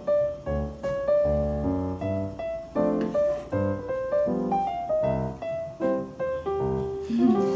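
Background piano music: single notes and chords played one after another in a simple melody.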